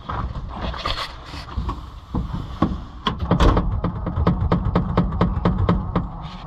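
The 1961 Ford F-600 truck's starter cranking the engine over slowly without it firing. A regular chugging rhythm of about five strokes a second sets in about three seconds in. It is too slow to start because the battery is nearly dead and the engine is cold.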